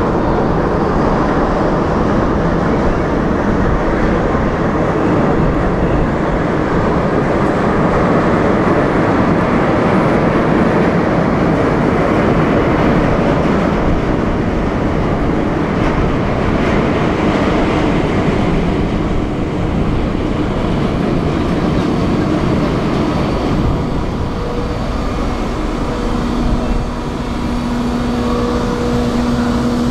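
Large car ferry's machinery running with a steady, loud rumble as it manoeuvres at the berth. A low steady tone joins in near the end.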